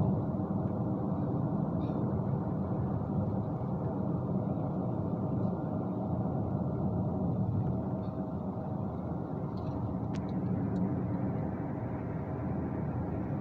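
Steady road and engine noise of a moving car, heard from inside the cabin, with a faint click about ten seconds in.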